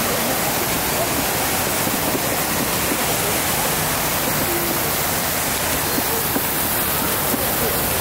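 Steady rush of water from a man-made pool waterfall pouring off a stone wall into the pool.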